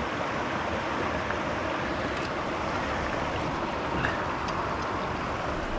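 Steady rushing of a flowing stream, an even hiss of moving water, with a few faint ticks over it.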